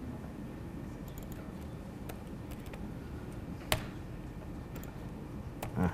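Sparse keystrokes on a laptop keyboard as code is typed, heard as scattered faint clicks over steady low room hum. One sharper click comes a little past halfway, and there is a short low thump just before the end.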